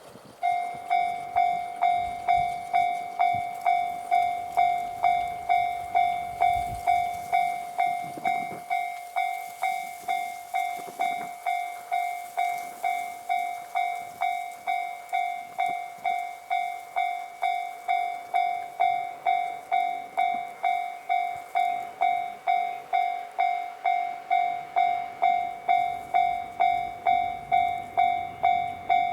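Japanese railroad crossing warning signal ringing its electronic bell, one clear pitched ding a little under twice a second, steady and unbroken: the crossing is closed for an approaching train.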